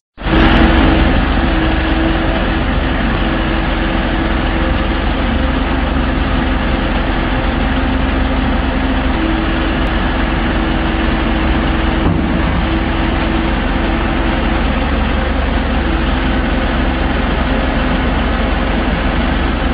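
Excavator's diesel engine running steadily at idle, a constant low hum.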